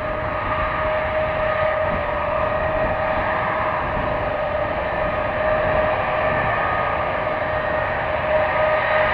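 C-5A Galaxy's four General Electric TF39 turbofans running at taxi power: a steady high whine over an even rush of jet noise.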